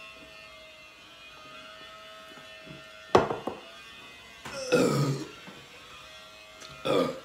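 Two people chugging canned soda, the swallowing faint. About three seconds in comes a sudden loud gasp as one finishes, then two more loud breathy vocal noises.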